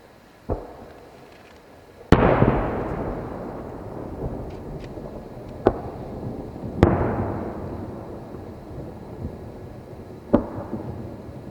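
Aerial fireworks shells bursting, five booms a few seconds apart; the two loudest, about two seconds in and near the middle, each trail off into a long rolling echo.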